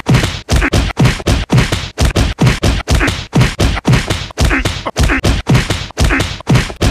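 Loud, fast pounding beat of hard percussive hits, about four a second, each with a low thump.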